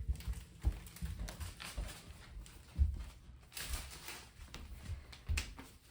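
Soft, irregular thumps of footsteps on the floor, about seven of them, with faint handling noise.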